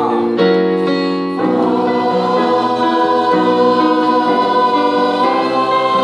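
Small choir singing a vocal warm-up exercise, holding notes together and stepping to a new pitch about once a second, with a digital piano accompanying.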